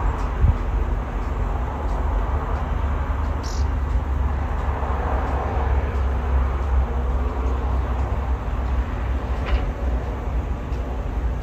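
Strong wind buffeting the microphone, a steady deep rumble, over a hum of distant city traffic. Two brief high chirps, one about three and a half seconds in and one near the end.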